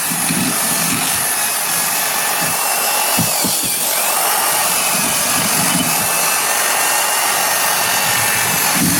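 Handheld electric power tool running steadily at high speed, a continuous high-pitched whirr, with a brief dip in pitch about three and a half seconds in as it is loaded.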